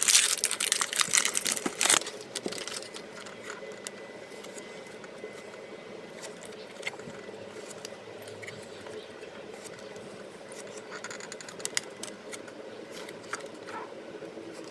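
Trading-card packs and cards being handled: a loud run of crinkling and clicks for about the first two seconds, then scattered soft clicks and rustles over a steady background hum.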